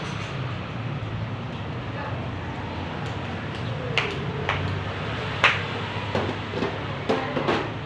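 Flip-flop footsteps on concrete steps and a few sharp knocks as a small box is handled and set down, starting about halfway in, over a steady low background rumble.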